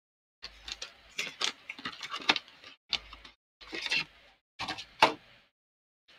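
Plastic marker pens clicking and clattering against one another as they are picked through and handled, in uneven clusters of sharp clicks with short pauses between.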